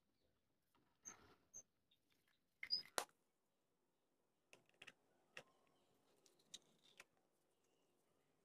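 Faint clicks and taps of small plastic toy pieces being handled, with the loudest pair of clicks about three seconds in and a few lighter ticks later.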